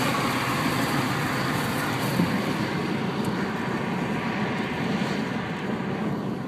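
Steady road and wind noise inside the cabin of a moving car, easing slightly toward the end.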